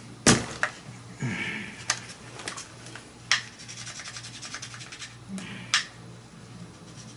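Fingers rubbing and pressing a chassis protector film down onto an RC buggy chassis to stick it firmly, with a few sharp taps and clicks along the way. A faint steady low hum runs underneath.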